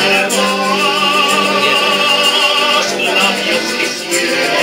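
Piano accordion accompanying male voices singing. A long note is sung with vibrato through most of the first three seconds, and the music dips briefly near the end.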